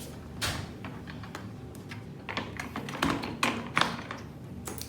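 Irregular light taps and clicks, a dozen or so, coming thicker in the second half.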